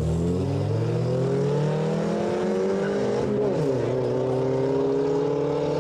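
Two hatchback cars accelerating hard from a standing drag-race start. The engine notes climb steadily, and one drops and climbs again about three and a half seconds in as it shifts up a gear.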